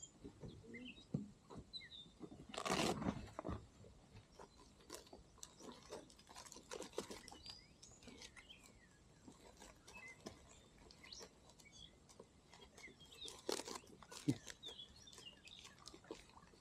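Small birds chirping in short, scattered calls along the river, with two louder noisy sounds, one about three seconds in lasting about a second and a shorter one near the end.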